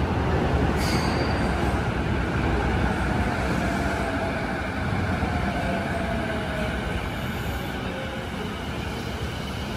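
Keiyo Line electric commuter train running along an underground platform, wheels rumbling on the rails with a faint motor whine, slowly growing quieter.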